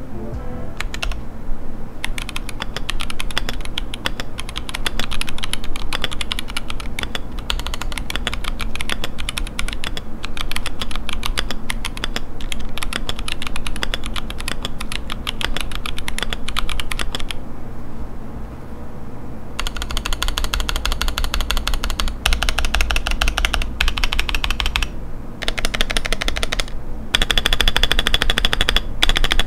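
Typing on a KBDfans D65 custom mechanical keyboard with an aluminium case, lubed switches and PBT keycaps: a fast, continuous run of key clacks. There is a short pause a little past halfway, then denser typing.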